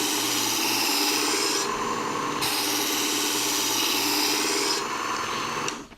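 Work Sharp Combo electric knife sharpener running, its abrasive belt grinding the steel knife blade in slow, even strokes; the grinding eases briefly between strokes. The motor stops just before the end.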